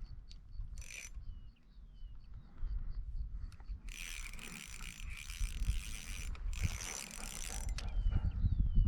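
Fishing reel buzzing and clicking as a hooked bass is played, in short bursts and then two longer runs about four and seven seconds in.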